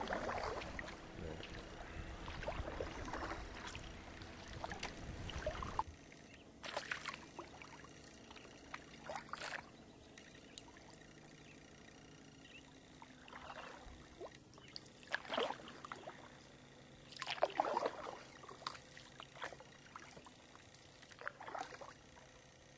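Kayak paddle strokes: the blade dipping and pulling through the water with small splashes and drips, a few seconds apart. A low rumble runs under the first few seconds, then stops.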